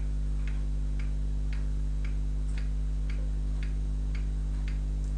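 Steady, even ticking, about two ticks a second, over a constant low electrical hum.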